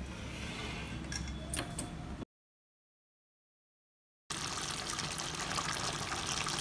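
Faint wet handling sounds of chicken curry being ladled into a glass bowl, with a few light clicks. About two seconds of dead silence in the middle.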